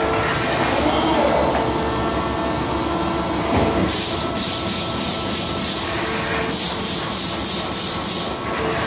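Amada VIPROS-357 Queen turret punch press running with a steady mechanical hum, broken by two runs of rapid, evenly spaced hits, about four a second: one from about four seconds in and one from about six and a half seconds in. The hits are its punching strokes.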